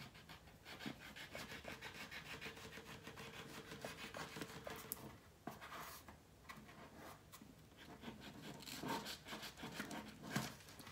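X-Acto knife blade shaving the leftover ridge off a still-pliable, partly cured epoxy resin bangle: a quick run of faint, close-spaced scraping strokes for the first few seconds, then quieter, then a few more scrapes near the end.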